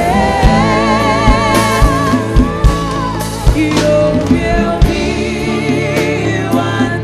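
A woman singing a gospel worship song with a wavering vibrato, backed by a live band with drums and backing singers.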